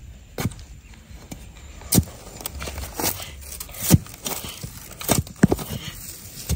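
A long digging pole jabbed repeatedly into hard, dry soil: a series of sharp knocks, about one a second.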